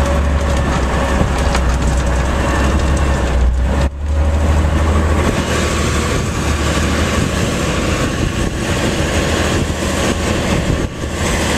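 Garbage truck's diesel engine running under heavy load, a steady low rumble, while its tires push through deep snow drifts, with a broad rushing noise over it. The sound briefly drops out about four seconds in.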